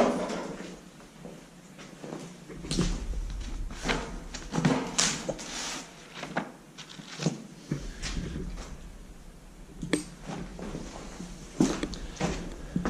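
Irregular knocks, clicks and scuffs in a small, echoey room, like people moving about and handling loose objects.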